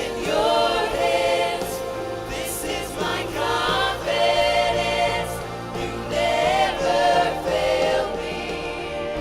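Gospel worship singing: a group of voices sings phrases about a second long over steady, held instrumental accompaniment.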